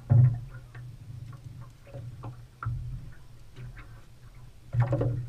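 Irregular ticking and clicking from a fishing reel being cranked with a catfish on the line, over a steady low hum. Louder bursts come just after the start and again near the end.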